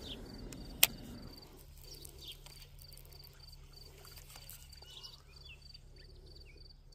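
Faint insects chirping in an even, high-pitched pulse of about three chirps a second. A single sharp click sounds about a second in.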